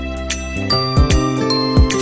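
Background music: bright, bell-like tinkling notes over a steady beat of about two and a half strokes a second.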